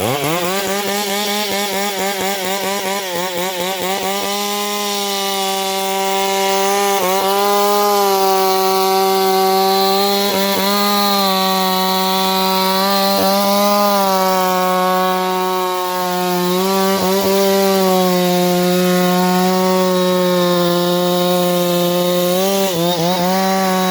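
Two-stroke chainsaw revving up at the start, then running at high speed through a tree trunk in a felling cut. Its pitch dips briefly several times as the chain bites into the wood.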